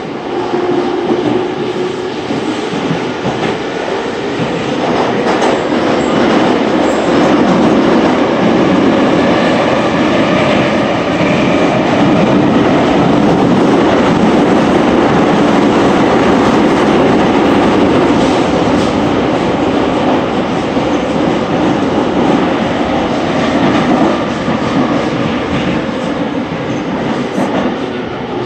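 Running noise inside a JR East E231 series 800 commuter train travelling through a subway tunnel: a loud, steady rumble of wheels on rail. A humming tone is heard near the very start.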